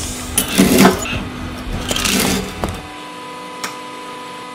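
Two short bursts of noise, then the steady hum of a hydraulic press running, with one sharp crack about three and a half seconds in.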